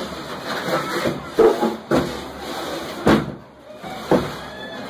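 A few sharp knocks or thumps at irregular intervals, over a steady background of workshop noise.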